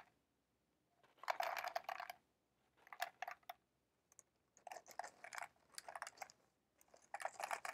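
Dried beans poured from a plastic bag into a foil-bottomed cardboard tube, rattling in as about five short bursts of small clicks, each a trickle of beans hitting the tube and the beans already inside.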